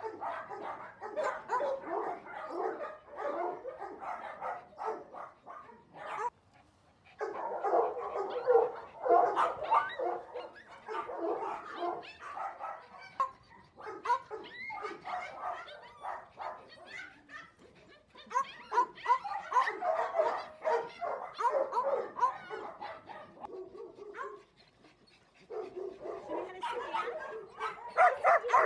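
Several small dogs barking and yipping over one another in near-continuous rapid bursts, begging for treats, with two brief lulls, about six seconds in and about twenty-four seconds in.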